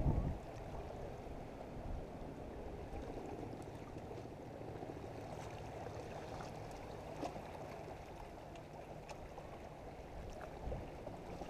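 Steady low rush of wind and water at the water's edge, with a few faint ticks.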